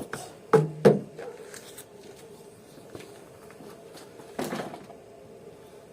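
Sharp knocks and clatter of a car part just pried loose being handled: two loud knocks close together about half a second in, and a shorter rattle a few seconds later.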